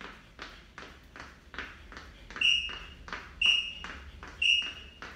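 Interval timer giving three short high-pitched countdown beeps, one second apart, over a steady run of light foot landings on the floor, about two and a half a second, from hopping on the spot.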